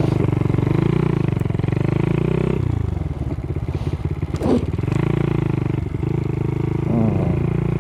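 Honda Monkey 110's single-cylinder engine running under way. Its pitch climbs, dips sharply about two and a half seconds in, climbs again, and then holds steady.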